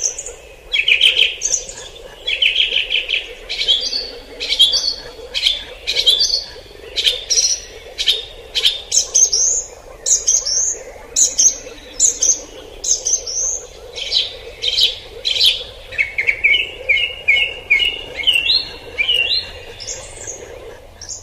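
Wild birds singing, with a stream of short, repeated chirping phrases; in the last few seconds one bird gives a run of notes that step upward in pitch.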